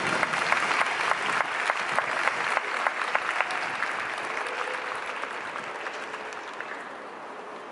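Spectators applauding with many quick hand claps, the clapping dying away gradually over the last few seconds.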